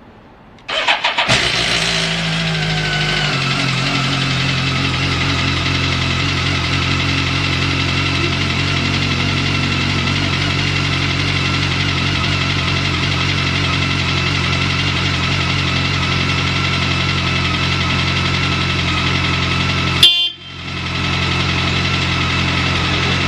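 BMW K1200S inline-four engine starting on the first press of the starter: a brief crank, then it catches, runs a fast idle that settles within a couple of seconds, and idles steadily with no abnormal noise. About twenty seconds in, a sharp click is followed by a moment of near silence before the idle sound returns.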